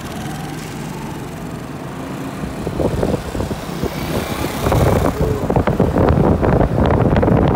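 Motorcycle pulling away and accelerating, its engine getting steadily louder, with wind buffeting the microphone more and more heavily from about halfway through as the speed builds.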